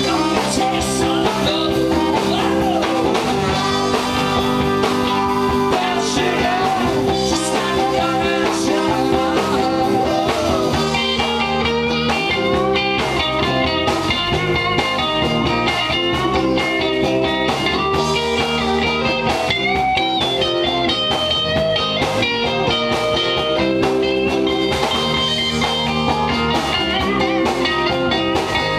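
Blues-rock band music with electric guitar to the fore, playing steadily without a break.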